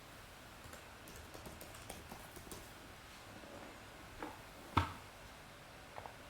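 Faint scattered clicks in quick succession, then a few separate light taps, the sharpest just before five seconds in, like typing or small desk-top handling.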